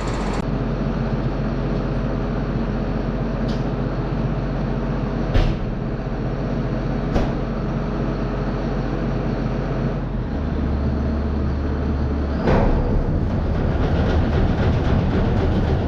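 Farm tractor engine running steadily at idle, with a couple of sharp metallic clicks. About twelve seconds in, the engine gets louder and rougher.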